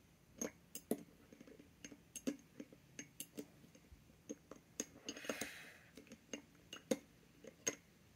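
Light, irregular glass clinks and taps as a dip pen is worked into the neck of a glass ink bottle, knocking against the glass and its glass marble. A short soft hiss about five seconds in.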